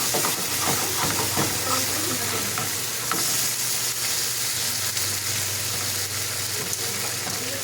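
Roast chicken pieces sizzling in curry sauce and oil in a hot pan while being stirred, a steady frying hiss. A few light clicks come in the first couple of seconds.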